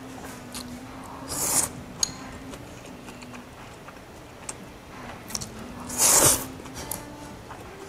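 Eating stir-fried noodles close to the microphone: two short, loud slurps, about a second and a half in and again near six seconds, the second the louder, with small mouth clicks of chewing between.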